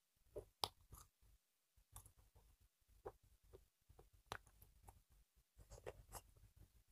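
Faint eating sounds: scattered soft clicks and smacks as rice is mixed by hand on a plate and chewed, the sharpest just over half a second in.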